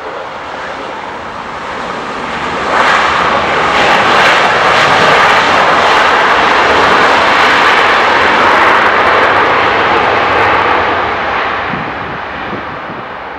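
Boeing 777-200ER's Rolls-Royce Trent 892 engines in reverse thrust on the landing rollout: a loud rushing roar that comes in suddenly about three seconds in, holds for some eight seconds, then dies away as the engines spool down.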